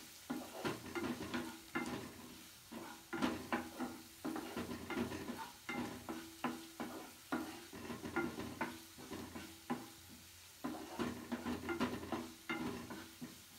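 Stirring a vegetable mix in a frying pan: a utensil scraping and knocking against the pan in irregular strokes, over a light sizzle.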